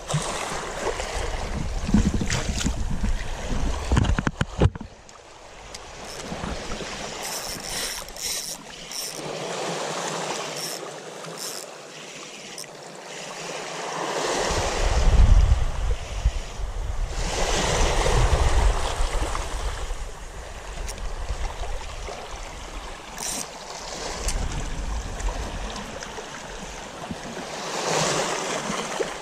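Small waves washing onto a sandy shore, swelling and fading every few seconds, with wind buffeting the microphone.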